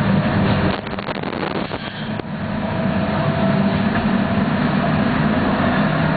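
Steady running noise of a moving vehicle heard from inside its cabin, a low drone under road noise. It drops briefly about a second in, then builds back to a steady level, with a faint whine holding on later.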